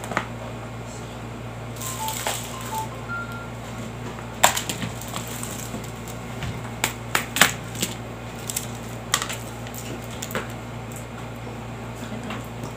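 Packaging being handled during an unboxing: scattered sharp clicks and rustles, the loudest about four and a half and seven and a half seconds in, over a steady low hum.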